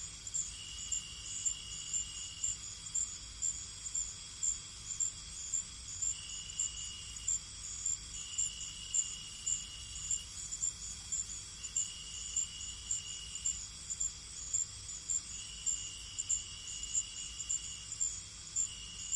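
Crickets chirping in a steady, even rhythm of short high chirps over a constant high insect drone. A second, lower insect trill comes and goes every few seconds, each lasting one to two seconds.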